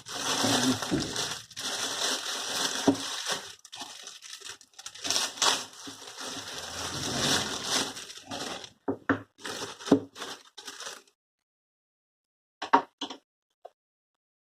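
Packaging being handled and unwrapped, crinkling and rustling with many small crackles, then stopping; a few short clicks follow near the end.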